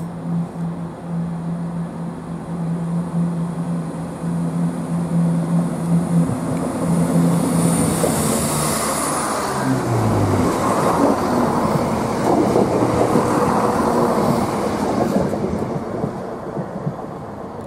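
A Greater Anglia multiple-unit passenger train passing close by along the platform. A steady low hum drops in pitch about ten seconds in as the train goes past, while the rush of wheels on rails swells to its loudest in the second half and then eases off.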